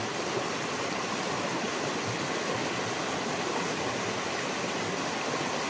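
Fast-flowing shallow mountain river rushing over stones: a steady, even rush of water.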